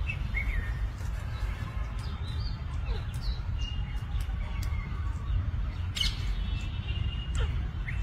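Alexandrine parakeets calling at a feeder: scattered short chirps and whistled calls, with one louder sharp call about six seconds in, over a steady low rumble.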